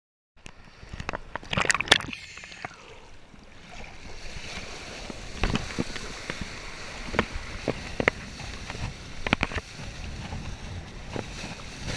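Tona kiteboard planing across light chop: a steady rush of water spray and wind on a chest-mounted GoPro, broken by sharp slaps of the board hitting small waves, loudest in a cluster about two seconds in. The sound cuts in abruptly about half a second in.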